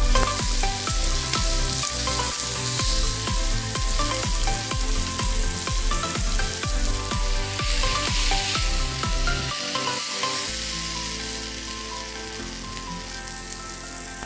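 Entrecôte beef steaks sizzling as they fry in a pan, with the sizzle thinning out toward the end. Background music with a regular beat plays underneath.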